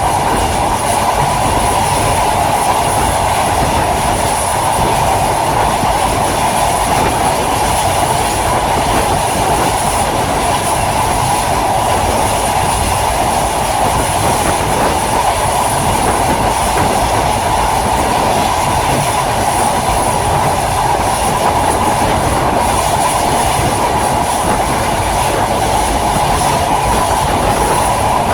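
Train running steadily on the rails: a loud, continuous rumble of wheels on track that holds even throughout.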